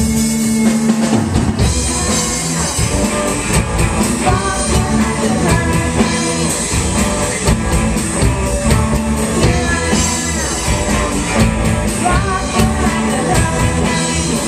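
Live hard-rock band playing: distorted electric guitars, bass guitar and a drum kit, with a singer over the top.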